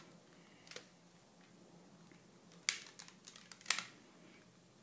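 A few sharp clicks and taps from hands handling a phone and small objects: one about a second in, then a quick cluster about three seconds in.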